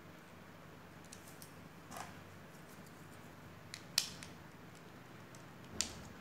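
LEGO plastic bricks being handled and pressed together: a few light plastic clicks, the sharpest about four seconds in and another near the end.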